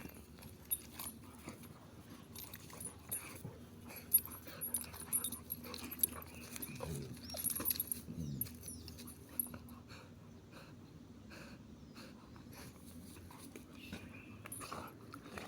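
Puppies whining, with short falling cries around the middle, among scattered small clicks and knocks from their movement that die down after about ten seconds.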